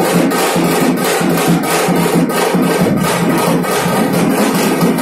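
Loud, distorted drumming, a Punjabi dhol beating a fast, steady rhythm of several strokes a second and overloading the recording into a harsh, rasping din.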